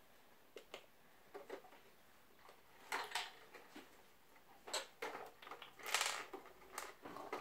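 Faint, scattered clicks and taps of small plastic toy pieces: a toy figure and building bricks being handled and set down, with light rustling now and then.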